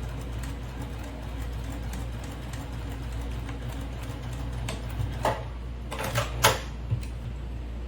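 Domestic sewing machine running steadily, stitching a seam, with a few short sharp clicks a little past the middle.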